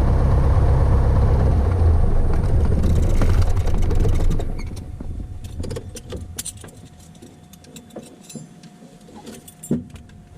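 Cessna 172 Skyhawk's four-cylinder Lycoming engine running at idle, then shut down about four seconds in, dying away over half a second. Afterwards the cockpit switches click off and keys jangle.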